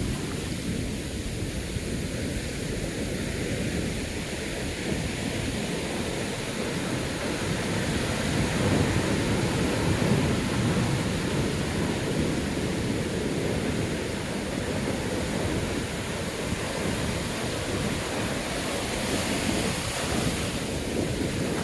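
Rough storm surf breaking and rushing up the beach, with strong wind buffeting the microphone. The roar swells louder about eight to eleven seconds in as a bigger wave comes through.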